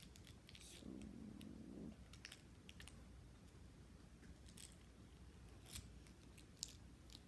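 Near silence: room tone with a few faint, scattered small clicks and a brief faint murmur about a second in.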